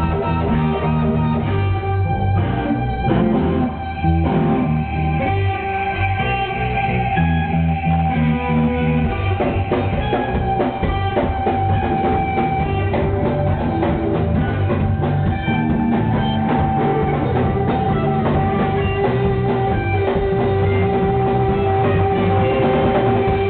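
Live rock band playing an instrumental passage: electric guitar and bass guitar over a drum kit, with a sustained note held through most of it.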